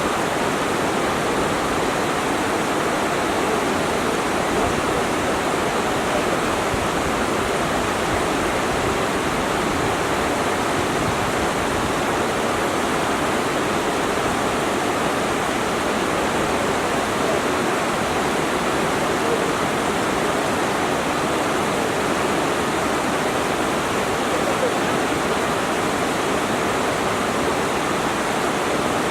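Waterfall: falling water making a steady, even noise that does not change in level.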